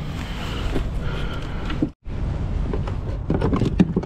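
Steady low rumble of wind on the microphone, cut by a brief dropout about two seconds in, with short clicks and rattles of fishing pliers and tackle being handled near the end.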